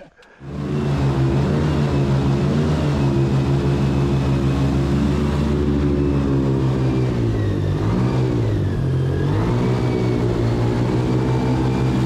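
An airboat's engine and caged air propeller running steadily as the boat skims across marsh grass. The engine note sags for a moment about two-thirds of the way through, then comes back up.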